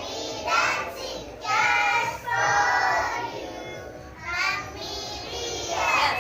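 A group of young children singing a rhyme together in short phrases.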